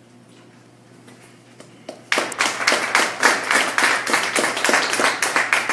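Audience applauding: a crowd's hand claps break out about two seconds in and keep going as a dense, loud patter.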